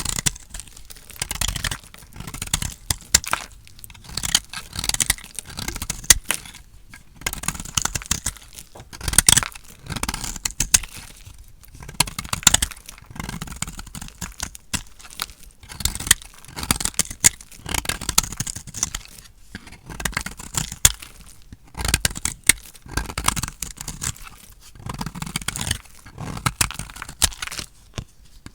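A blade cutting through dry, painted soap, each stroke a crisp crunching crackle, repeated roughly every second and a half.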